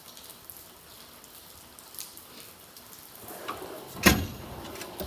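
Steel tool-cabinet drawer being worked: faint light clicks and rattles, then a rumble as a drawer slides, ending in one loud bang about four seconds in.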